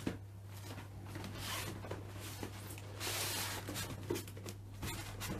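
Cardboard box and packaging being handled: irregular rustling and scraping as a computer is worked out of its box, densest about three seconds in, over a steady low hum.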